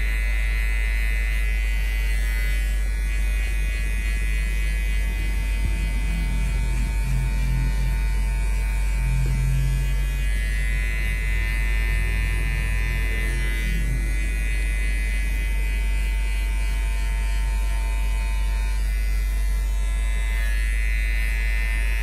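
JRL electric hair clipper fitted with a guard 1 comb, running with a steady buzz as it cuts short hair around the ear and the back of the neck.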